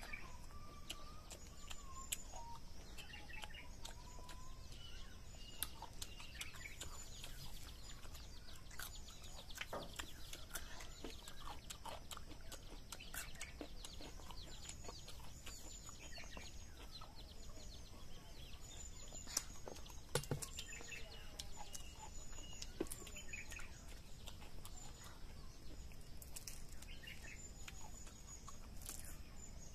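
Chickens clucking now and then, with small birds chirping in short high notes, over scattered faint clicks and taps.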